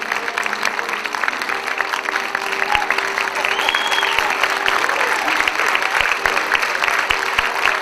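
Theatre audience applauding at the end of a ballet duet, a dense patter of clapping. A held low note from the music lingers underneath until about halfway, and a brief high whistle rises out of the crowd a little before the middle.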